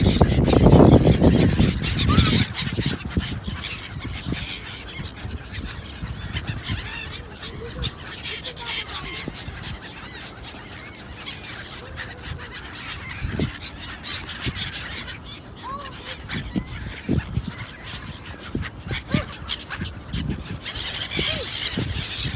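A flock of gulls calling over open water, many short overlapping cries. A low rumble covers the first two seconds.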